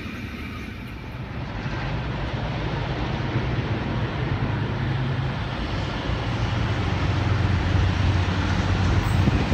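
Diesel locomotive engine, a 42 class, droning steadily and growing louder as it approaches.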